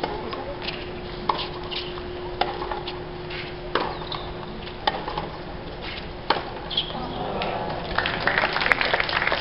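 Tennis ball struck back and forth with rackets in a rally, sharp pops about a second or so apart. Near the end, spectators start clapping.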